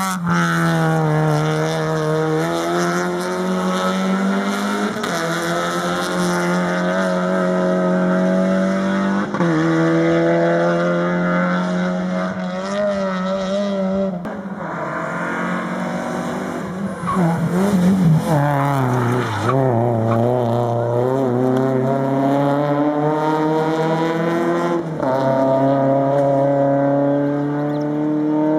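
Rally cars' engines running hard on a tarmac special stage, the pitch climbing and dropping again and again with gear changes and corners.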